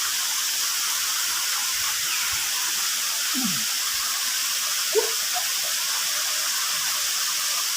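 Waterfall rushing: a steady hiss of falling water, with a brief faint sound about five seconds in.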